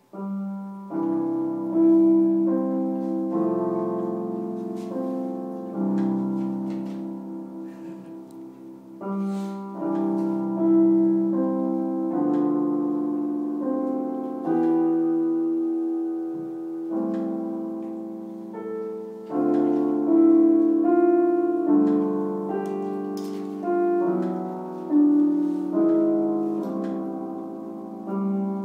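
Solo piano playing a slow, calm piece: sustained chords struck every second or two, each ringing out and fading before the next.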